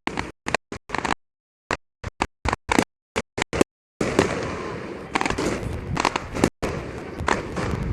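Rapid series of sharp gunpowder bangs, several a second, with dead silence between them at first. About halfway through, a continuous street-crowd noise comes in under the bangs as they keep going.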